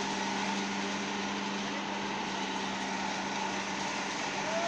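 Concrete-pouring machinery running steadily, a constant engine-like hum with no change in pace.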